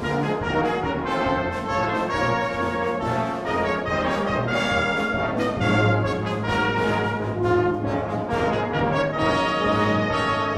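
Brass band of cornets, euphoniums, trombones and tubas playing in full harmony, with a steady pulse of note attacks over a low bass line.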